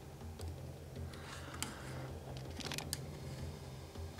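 Faint scattered clicks and scratches of small hobby work, a metal sculpting pick on plastic card and the model being handled, over a steady low hum.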